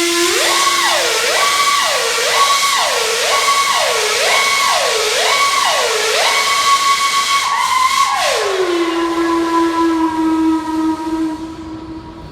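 Steam locomotive whistle blowing with a hiss of steam. Its pitch swoops up and down about once a second, around seven times, then holds on the high note before sliding down to a steady lower note that fades away near the end.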